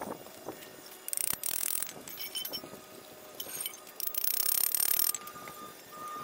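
Hand-held steel wire brush scrubbing a fresh weld on square steel tubing to clean off slag and spatter, heard as a few harsh scratchy bursts with light metallic clinks.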